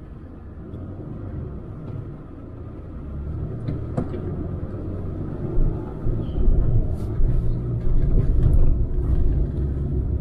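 Force Gurkha's 2.6-litre diesel engine pulling at low speed as the 4x4 crawls up a rough off-road slope, heard from inside the cabin. The low rumble grows louder about halfway through, with scattered knocks and rattles from the body over the uneven ground.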